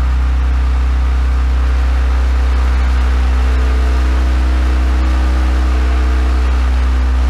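18-inch Dayton Audio subwoofer driver playing a steady 62.7 Hz sine tone from a Kenwood KA-7100 amplifier driven into clipping, with a harsh buzzing on top of the low hum. The buzzing is the harmonic distortion of the clipped, non-linear output.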